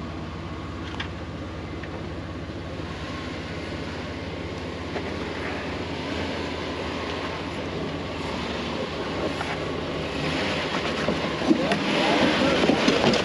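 Jeep TJ's engine running at low revs under load while crawling over rocks. It gets louder in the last few seconds, with a rising rush of noise and a few knocks as the tyres work on loose rock.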